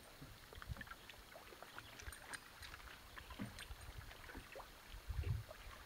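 Faint scattered clicks and small knocks from a largemouth bass being unhooked and handled on a boat, over a low rumble, with a soft low thump about five seconds in.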